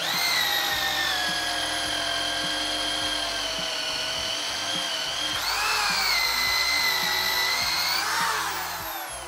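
Corded power drill with a wood-boring bit cutting through a pressure-treated 4x4 post. The motor starts abruptly and runs with a steady whine, dips and picks up speed again about halfway through, then winds down near the end.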